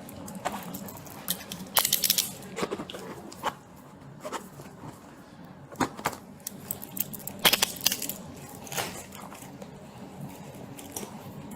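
Small metal objects jangling and clicking in a few short bursts, loudest about two seconds in and again about seven and a half seconds in, over a steady low hum.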